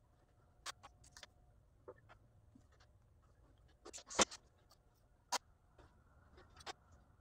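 Fine line masking tape being handled and pressed onto a wheel by hand: scattered small clicks and rubs at irregular spacing, the sharpest about four seconds in.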